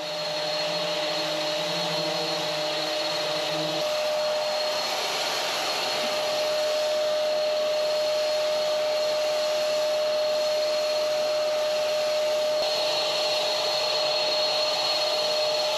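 Electric HVLP paint sprayer's turbine running steadily: a steady rushing blow with a constant whine. A lower hum underneath stops about four seconds in.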